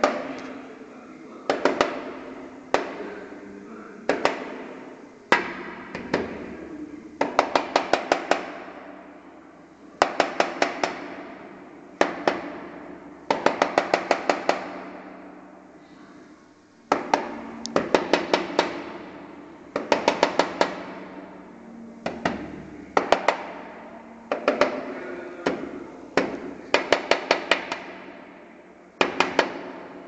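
Black-rumped flameback woodpecker pecking hard at a glass window pane: loud single taps and rapid bursts of several taps every second or two, each tap ringing briefly on the glass.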